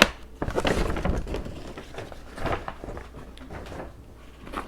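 A few short rustles and light knocks as a shoe box is handled and taken out of a shopping bag.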